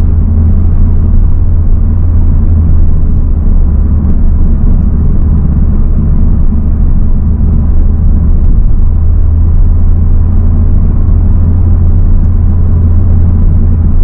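Honda Civic Type R FL5 heard from inside the cabin while driving: a steady low rumble of engine and road noise that holds even throughout, with no revving rise or fall.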